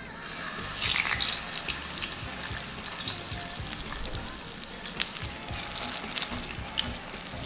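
King mackerel steak frying in hot oil in a non-stick pan. The sizzle jumps up about a second in and then runs steadily, with many small crackles and pops.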